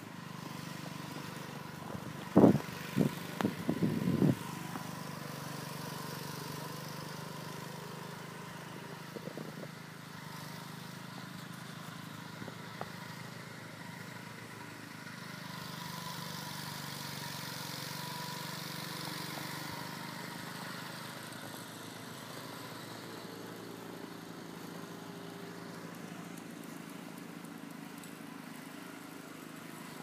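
A steady engine hum with a thin steady whine above it, broken about two to four seconds in by a quick run of loud, sharp knocks.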